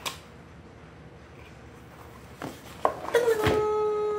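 Cardboard packaging of a Blue Yeti microphone being opened by hand: a click, then a few sharp knocks and one heavier thud as the flap and inner box come apart. A steady held tone of about a second and a half starts alongside the knocks and is the loudest sound.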